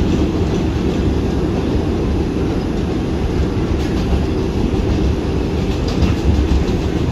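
New York City subway train running on elevated track, heard from inside the car: a steady low rumble from the wheels and running gear, with a few faint clicks.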